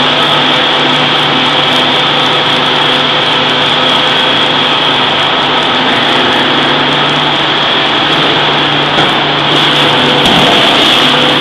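Steady, loud mechanical drone with a constant high whine and low hum, from running forge-shop machinery; no distinct hammer blows.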